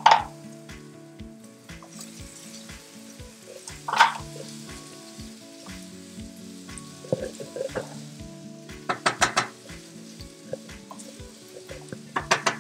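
Shrimp sizzling as they fry in oil with a garlic, onion and parsley sofrito, stirred with a wooden spoon. There are louder short bursts of frying and stirring at the start, about four seconds in, around nine seconds in and near the end.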